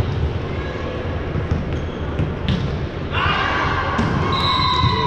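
Basketballs bouncing on a hard gym floor in a large hall, a run of dull thumps. About three seconds in, a long high tone joins them.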